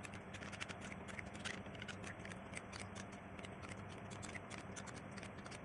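Metal spoon stirring a thick mayonnaise and ketchup sauce in a small glass bowl: a quick, irregular run of faint clicks and scrapes of the spoon against the glass.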